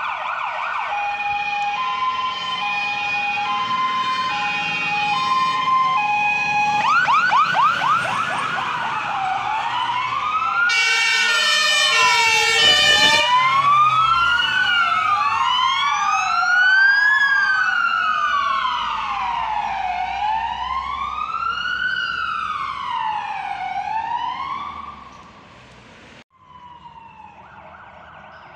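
Sirens of several passing fire engines: first a two-tone hi-lo pattern, then a fast yelp, then a horn blast about eleven to thirteen seconds in, then several wailing sirens rising and falling over one another. The sound cuts off abruptly near the end to a quieter, steady tone.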